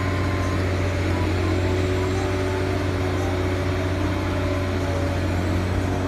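Diesel engine of a large telescopic crawler crane running steadily, a low even hum with no change in pitch.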